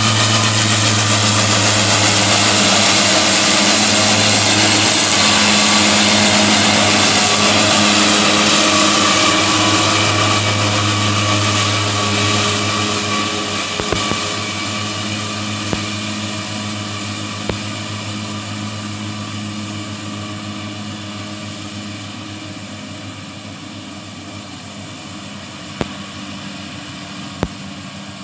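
Tractor engine running steadily under load, driving a SIP front-and-rear triple disc mower cutting grass: a steady drone with a high whirring hiss. It is loud at first and fades steadily from about ten seconds in as the rig moves away, with a few sharp clicks in the second half.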